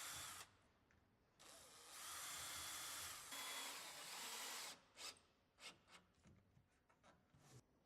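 Power drill running faintly in two stretches, boring the fixing holes for a striking plate, followed by a few light clicks.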